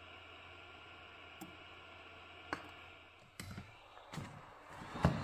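Light plastic clicks and knocks from the hot air gun handle of an 8586D rework station being handled and set into its holder, a few scattered at first and then a cluster, the loudest knock near the end.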